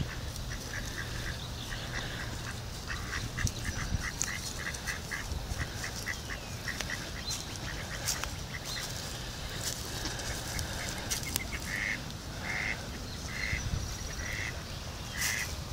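Mallard ducks quacking: a quick run of short quacks, about three a second, then slower, longer quacks toward the end.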